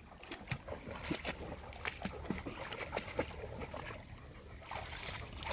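A dog swimming in canal water: small, irregular splashes and sloshes as it paddles, busiest in the first few seconds, over a low steady background rumble.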